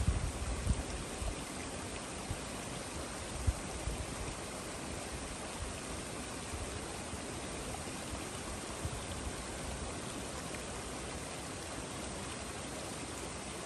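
Steady rushing of flowing water, with a few low thumps in the first four seconds.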